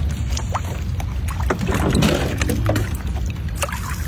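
Lake water sloshing and lapping around people standing waist-deep, over a steady low rumble, with scattered light clicks.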